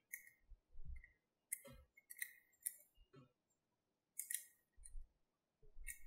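Small magnetic balls clicking and clinking against one another as fingers press and shift them on a magnetic-ball sculpture. About six sharp, bright clicks come spread over the few seconds, with a couple of soft, dull bumps from handling in between.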